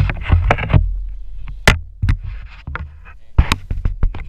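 Sharp knocks and clatter of gear and handling on a small fishing boat, a dense run of them at the start and single loud knocks about a second and a half in and again near the end, over a low steady rumble of the boat.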